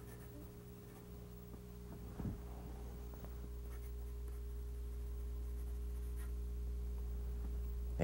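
Pencil scratching lightly on drawing paper as a signature is written, over a steady low electrical hum. A short soft thump comes a little after two seconds in.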